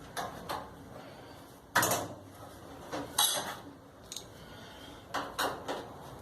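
Metal parts and tools clinking and knocking as they are handled, a handful of separate knocks. The loudest comes about two seconds in.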